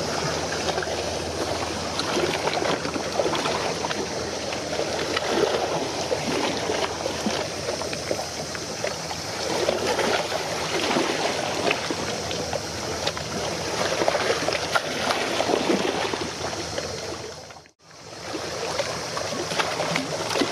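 Water splashing and washing, a steady rush with small irregular splashes. It cuts out briefly near the end and comes back.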